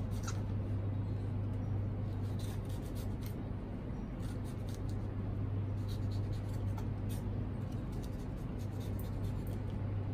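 Small kitchen knife slicing red chillies on a wooden cutting board: light, irregular taps and scrapes of the blade against the board, over a steady low hum.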